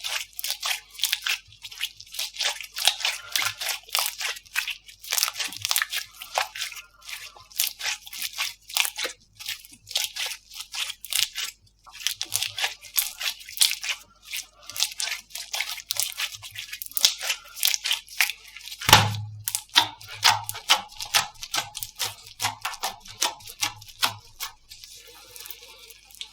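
Slime being squeezed and poked by hand, making a rapid, irregular run of crackles and pops, with one louder thump about 19 seconds in.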